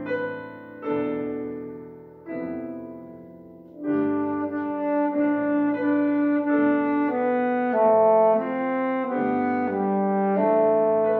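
Grand piano playing a few chords that ring and die away, then a saxophone comes in about four seconds in with a held, singing melody over the piano accompaniment.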